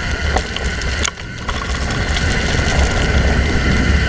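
Mountain bike running down a rough dirt trail: heavy wind and trail rumble with the ratcheting buzz of the rear freehub as the bike coasts, and a sharp knock about a second in.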